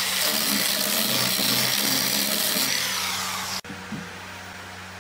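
Corded handheld power sanding tool running against hardwood, a steady high whine over rough grinding noise, cutting off abruptly about three and a half seconds in.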